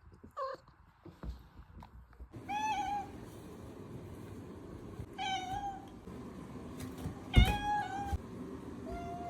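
Domestic cat meowing, five separate meows a couple of seconds apart, each under a second long. A sharp knock comes with the fourth meow and is the loudest sound.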